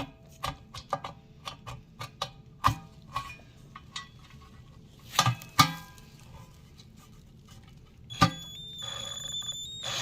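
Small clicks and taps of a little screw being turned by hand into the back of a metal TV stand, with a louder clatter a little after five seconds. About eight seconds in, a steady high-pitched tone starts and holds for about two seconds.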